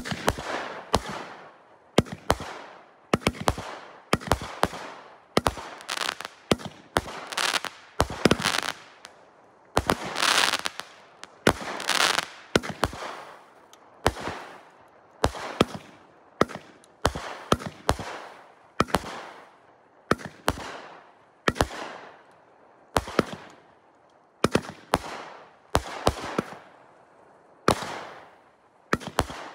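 200-gram 'Sky Bomb' consumer firework cake firing shot after shot, about one a second, each shot ending in a sharp salute bang with a long echo trailing after it.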